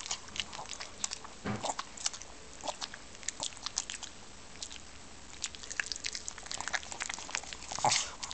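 A pug chewing and mouthing a piece of honeydew melon too big to swallow easily, giving irregular wet smacks and clicks. There is one louder noise near the end.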